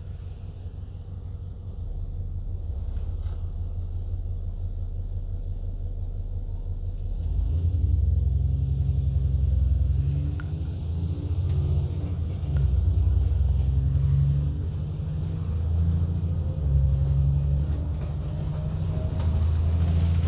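ADL Enviro 400 double-decker bus engine and drivetrain rumbling. It runs low and quiet for the first several seconds, then from about seven seconds in grows louder as the bus accelerates, the engine note climbing and dropping in steps as it works through the gears.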